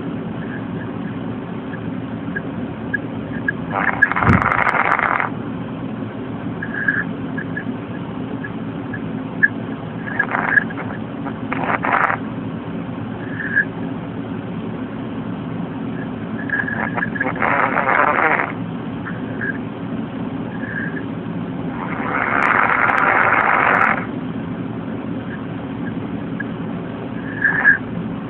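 A man snoring in his sleep: rough, breathy snores that come every several seconds, each lasting up to about two seconds, over a steady low hum.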